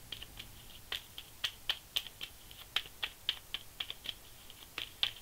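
A deck of tarot cards being shuffled by hand, heard as a quick, irregular run of light card clicks.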